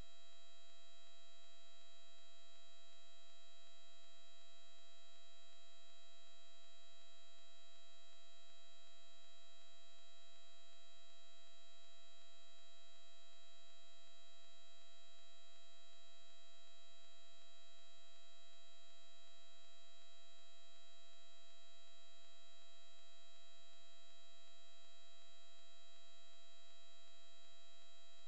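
Steady electrical hum made of several fixed tones at once, unchanging in pitch and level.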